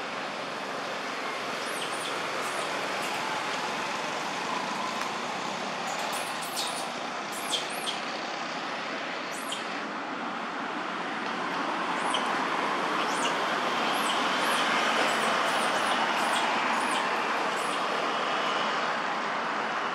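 Steady outdoor background noise that swells for several seconds past the middle, with scattered faint, short high chirps or ticks over it.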